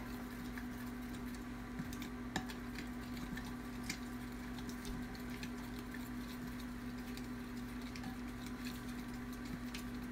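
Spatula stirring a thin sauce in a glass bowl, with scattered light clicks and taps against the glass, over a steady low hum.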